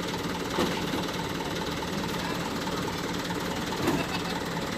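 An engine idling steadily, with two brief knocks, about half a second and about four seconds in.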